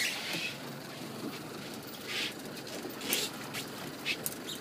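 Choppy sea slapping and splashing against the hull of a small open boat: a steady hiss of water and wind with several short, sharper splashes.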